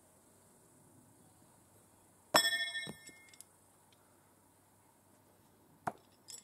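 A thrown steel knife strikes the wooden target with a sharp metallic clang that rings for about half a second, followed by a softer knock. A short sharp click comes near the end.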